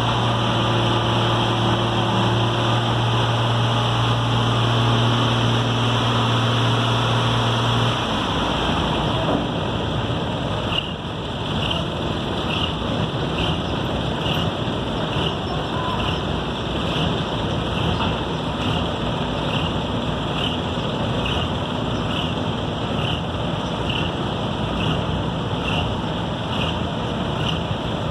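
Heavy road-construction machinery running: a steady engine hum for about the first eight seconds, then a rougher, noisier engine rumble with a short high-pitched beep repeating about once every 0.7 seconds.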